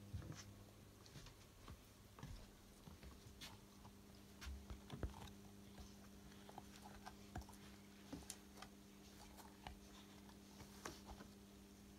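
Near silence with faint, scattered light taps and clicks as a rubber shark hand puppet bumps and rubs against a hollow yellow plastic toy, over a steady low hum.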